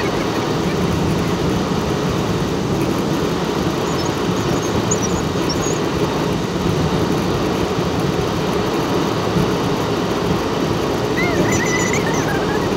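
Steady road and engine noise of a car driving along a highway, heard from inside the cabin, with a few faint high-pitched squeaks near the end.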